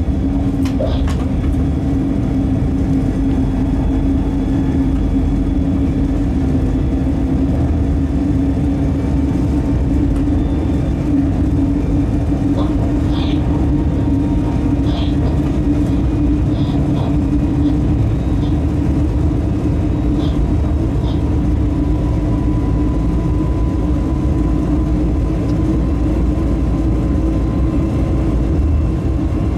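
Locomotive heard from inside its cab while running along the line: a steady running drone with a strong low hum over wheel and track rumble. A few short high chirps come in around the middle, and a faint higher tone joins about two thirds of the way in.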